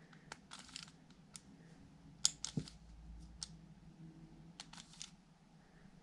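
Plastic pieces of a stickerless 3x3 speedcube clicking and clacking as the middle slice is flicked through M prime turns with the ring finger: a run of short, sharp clicks, the loudest a little over two seconds in.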